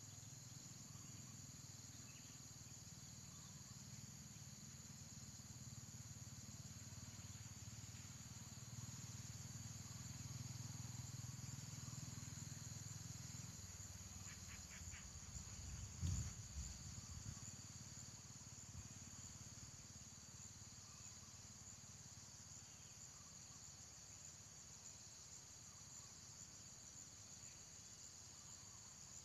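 Faint, steady high-pitched chorus of insects. Underneath it a low rumble swells and fades in the first half, and a single dull thump comes about sixteen seconds in.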